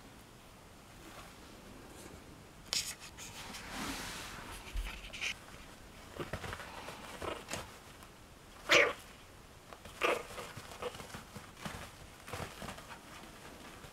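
Four-and-a-half-week-old chihuahua puppy making small yips and squeaks, a handful of short sounds spread out, the loudest about two-thirds of the way in.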